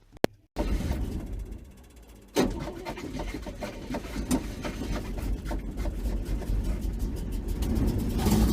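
Dodge engine on a cold start: a rumble that fades, then the engine catches suddenly about two and a half seconds in and keeps running, rough and ticking, getting louder toward the end.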